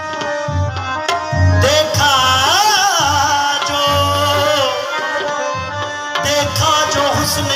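Qawwali music: tabla keeping a rhythm under steady harmonium notes, with a singer's long, winding ornamented run from about a second and a half in to just under five seconds.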